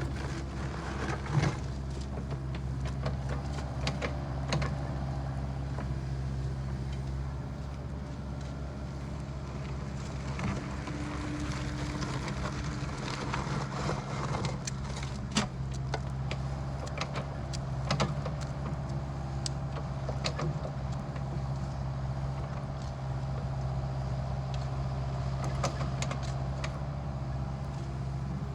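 Excavator engine running steadily, with scattered short clicks and knocks throughout.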